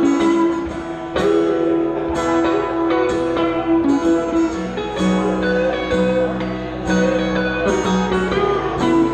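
Small live band playing an instrumental passage: strummed guitars with held harmonica notes over them, no singing.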